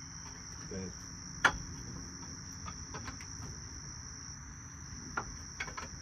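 Sharp metal knocks and clinks of hand tools at the dump truck's hydraulic hoist cylinder mounting as the cylinder is reinstalled: one loud knock about a second and a half in, a few lighter clinks, and a quick cluster near the end. Insects chirr steadily behind.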